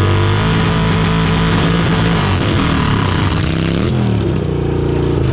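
Two motorcycle engines held at high revs with their rear tyres spinning in a burnout drag race, run up through the gears. About four seconds in, one engine's pitch dips and climbs again at a gear change, and the loud hiss drops away.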